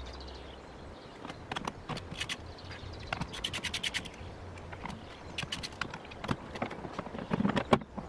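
Metal clicking and scraping of a hand ratchet working on the trolleybus's original battery connections, in quick runs of clicks, with a heavier knock near the end.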